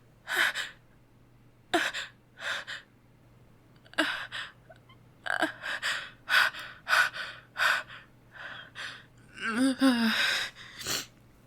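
A woman's sharp gasping breaths as a sneeze builds, a long run of quick intakes that come closer together past the middle. About ten seconds in there is a short strained, wavering voiced sound as the sneeze is held back and never comes out.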